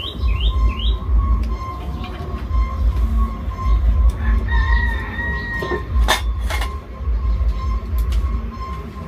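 A rooster crows once about halfway through, a single held call lasting about a second. Two sharp knocks follow shortly after, over a steady low rumble.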